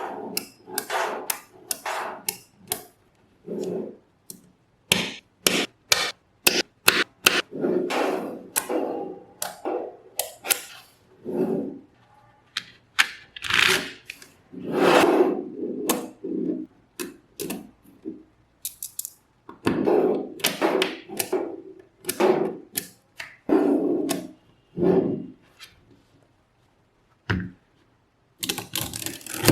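Small magnetic balls clicking and clacking together as they are snapped into place and handled, in quick irregular runs of sharp clicks with short pauses between them.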